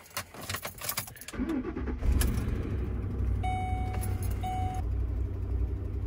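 Keys rattling, then a truck's engine starts about a second and a half in, on a cold start near freezing, and settles into a steady idle. Two short electronic beeps sound near the middle.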